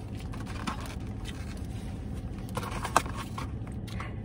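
Someone eating in a car, with small rustles, scrapes and clicks from handling food and paper wrapping, and one sharp click about three seconds in, over a steady low hum.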